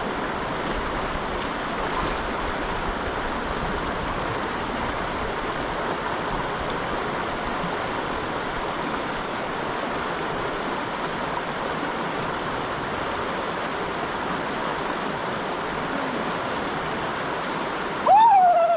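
Small mountain trout creek rushing steadily over its bed, an even hiss of running water. Near the end a man's voice cries out loudly.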